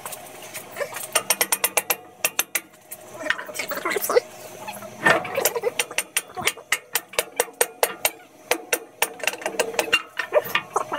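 Ratchet wrench clicking in several quick, even runs, with a few short metal scrapes between them, as nuts are worked loose on a tractor's rear axle and brake drum.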